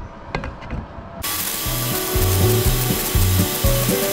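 A few light clicks of handling, then about a second in background music with a steady, driving bass beat cuts in abruptly.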